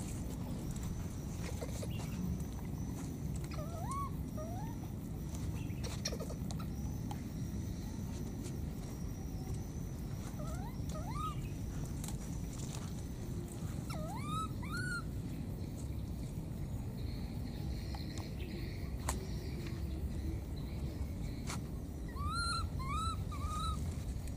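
Baby macaque calling: short, rising, squeaky cries in four bouts of two to four calls each. A faint steady high tone runs through the first half.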